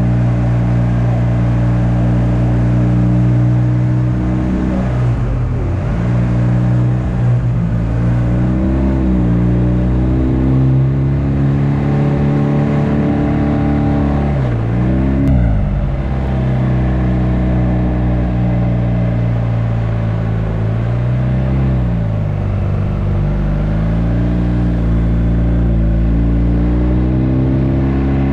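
Motorcycle engine running under way, heard from the rider's helmet-mounted camera. Its pitch holds steady, then dips sharply and climbs back about three times as the throttle is eased and reopened.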